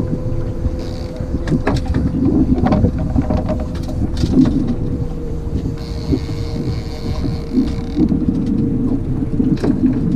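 Fishing boat's outboard motor running steadily at low speed, a constant hum. Wind noise on the microphone, and a few sharp clicks and knocks from gear being handled.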